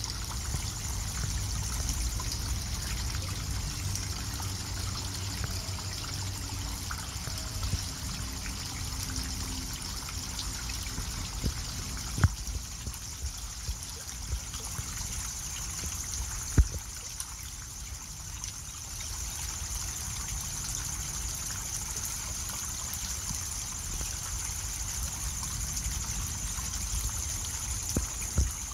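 Garden pond fountain: a pump-driven jet of water spraying up and falling back onto the pond surface, a steady trickling splash. The pump has just been cleared of debris. Under it runs a low rumble, and three sharp clicks stand out, at about 12 s, 16.5 s and 28 s.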